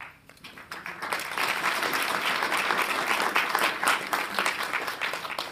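Audience applauding, many hands clapping, building over the first second and dying away near the end.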